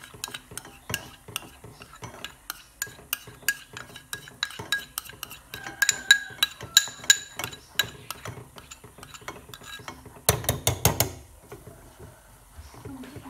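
Wooden spoon and chopsticks stirring a thickening milk, egg and cornstarch custard in a small stainless-steel pan, knocking quickly and steadily against its sides, with a few ringing clinks midway. About ten seconds in comes a short, loud cluster of clicks.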